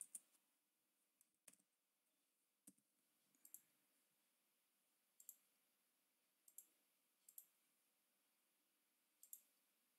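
Faint, scattered clicks of a computer mouse and keyboard, about eight of them spaced a second or so apart, over near silence.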